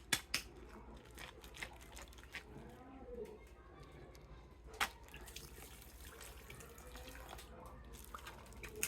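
Faint running and splashing water as a plastic toy figure is rinsed in clean water, with a few small knocks of the toy against its container, the sharpest about five seconds in.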